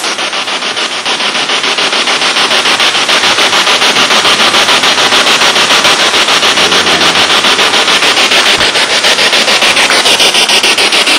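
Spirit box sweeping through radio stations, giving loud hissing static chopped into rapid, even bursts many times a second.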